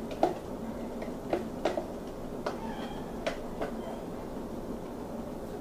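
A plastic container knocking and tapping against a glass baking dish as cornbread batter is shaken out of it: about seven light taps over the first four seconds, with a faint brief squeak in the middle, over a steady low hum.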